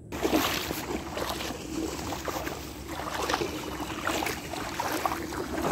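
Water splashing and sloshing irregularly around a small boat moving across a pond, over a steady low rumble.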